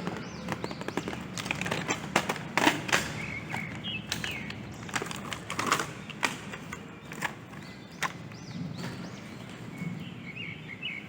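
Irregular light clicks and knocks of plastic toy figures and packaging being handled, with a few short high chirps about four seconds in and again near the end.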